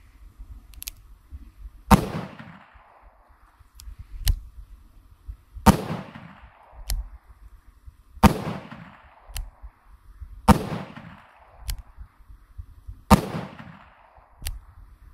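A revolver fired six times, about two to three seconds apart. Each shot is preceded by a light click.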